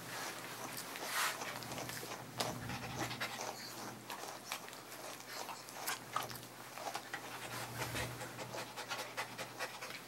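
Small dog panting, with short scratchy strokes of a brush through its coat.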